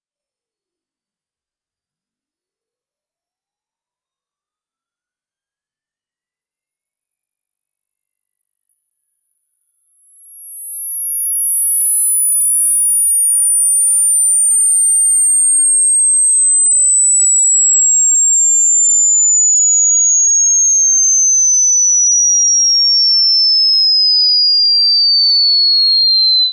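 Hearing-test tone: a single pure sine tone at a steady level that slides down in pitch in small even steps, from the very top of human hearing to a high whistle.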